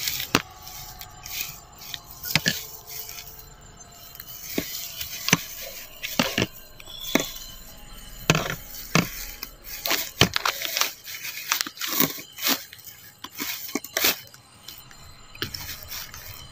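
Footsteps and legs pushing through dry grass and weeds, giving irregular crackles, snaps and crunches, with stalks brushing close to the microphone.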